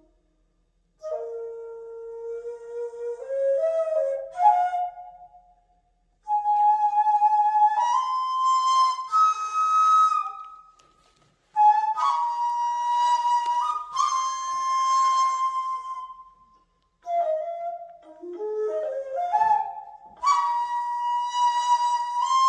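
Daegeum, the Korean transverse bamboo flute, playing a slow melody in four phrases with brief pauses for breath between them. Its notes step and slide upward with a breathy edge.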